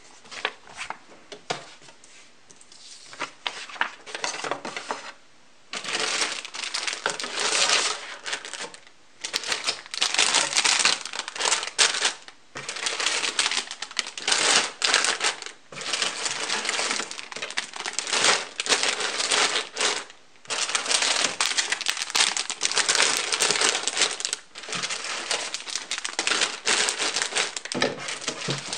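Plastic bags crinkling and rustling as bagged plastic runners of a Bandai Master Grade model kit are handled in their cardboard box, with light clicks and clatter of the plastic parts. The first few seconds are quieter, with scattered clicks and paper handling; the crinkling grows loud about six seconds in and goes on in bouts with short pauses.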